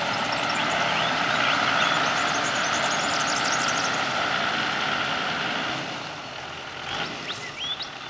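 A four-wheel drive's engine running as it drives through deep river water and climbs out onto the gravel bank, with water swishing around the wheels; the sound drops away about six seconds in as it leaves the water.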